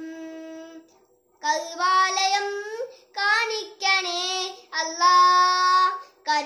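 A young boy singing a song solo with no accompaniment: a held note fades out about a second in, then after a short pause he sings on in phrases with long held notes.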